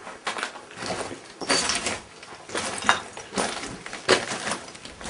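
Footsteps crunching over a rubble-strewn floor, roughly one or two steps a second, each step a short rough scrape or crunch of broken debris.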